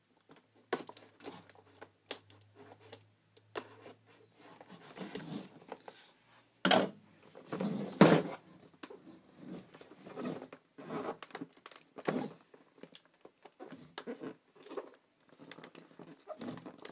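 Tape being picked at and peeled off a cardboard box: irregular scratching, tearing and crinkling with small taps. The box is hard to open. Two louder rips or knocks come about seven and eight seconds in.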